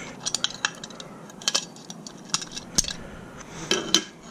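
Small metal hard-drive parts clinking and clicking against each other and the drive's casing as they are pried loose and handled, a string of sharp light clicks.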